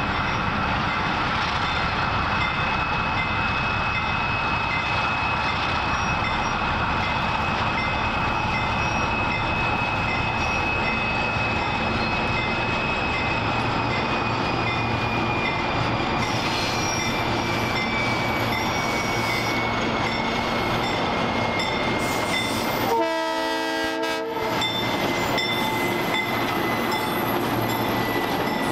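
Vintage Alco S2 switcher locomotive, with its turbocharged six-cylinder Alco 539 diesel running, comes up at low speed and passes close by. Loaded freight cars follow it, rolling by with wheel clatter. A high, steady wheel squeal sinks slowly in pitch.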